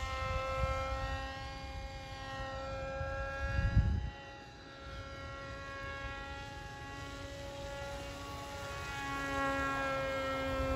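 Small RC plane's 1400 kV brushless electric motor and propeller whining steadily in flight, the pitch drifting a little with throttle and distance. Low rumbles of wind on the microphone sit underneath, the loudest about four seconds in.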